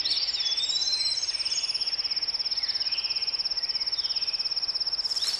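Woodland ambience: an insect trilling steadily at a high pitch with a fast, even pulse, while birds call, with a whistle gliding downward near the start and another near the end.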